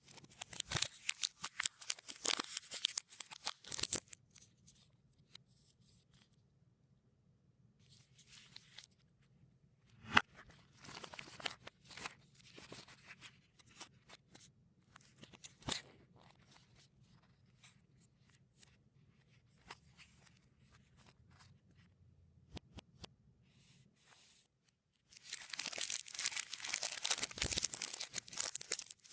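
Plastic candy and snack wrappers crinkling and rustling as they are handled, in bursts with quieter pauses between them, and a sharp click about 10 seconds in. The densest, loudest crinkling comes near the end.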